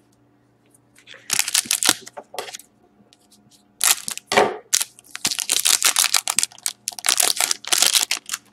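Foil wrapper of a hockey card pack crinkling as it is handled, cut open with scissors and the cards slid out, in several short rustling bursts.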